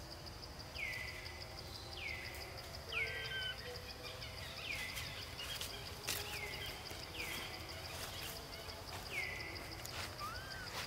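Forest ambience: an insect keeps up a steady high buzz while a bird repeats a short falling call about once a second. There are a few faint clicks.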